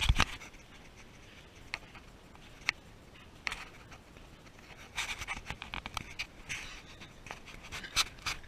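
Scraping, rustling and scattered clicks of a hiker squeezing through a narrow sandstone slot, the camera and clothing brushing against the rock walls. A sharp knock right at the start, a few lone ticks, then a busier stretch of scraping about five seconds in.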